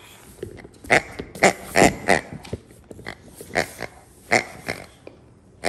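Pink rubber pig dog toy grunting as a Boxer bites and squeezes it: about a dozen short, oink-like grunts in quick, uneven succession, dying out about five seconds in.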